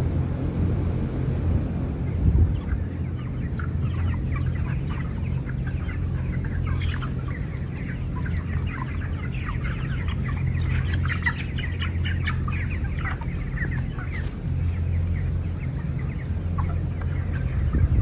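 A crowded flock of broiler chickens clucking and calling, many short overlapping calls, thickest through the middle, over the steady low hum of the shed's large exhaust fans.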